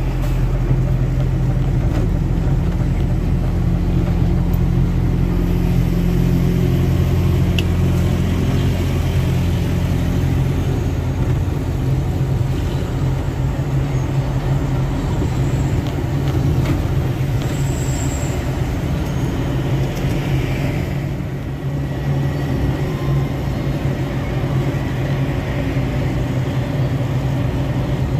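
Trailer truck driving along the road: a steady low drone of its diesel engine and road noise.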